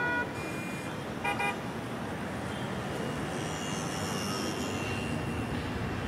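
Street traffic running steadily, with car horns: a short honk right at the start, then two quick toots about a second and a half in.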